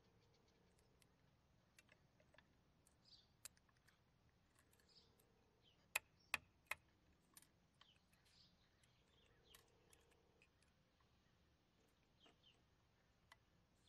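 Small clicks and taps from handling a First Gear model side-loader garbage truck: its grabber arm gripping and tipping a toy trash cart, then the cart set down. Three sharper clicks come close together about six seconds in.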